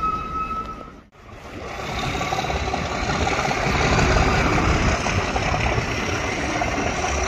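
A train of new, unpowered Class 720 electric multiple unit coaches rolling past at low speed, with steady wheel-on-rail running noise that grows to its loudest about four seconds in. The sound drops out briefly about a second in.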